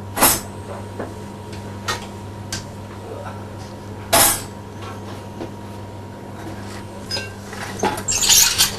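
Metal clanks and clinks of tools or car parts being handled: two sharp knocks about four seconds apart, then a cluster of rattling clinks near the end, over a steady electrical hum.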